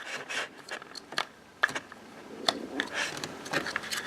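Scattered light clicks and knocks of hard plastic parts being handled as a dishwasher's drain pump is twisted off and pulled out.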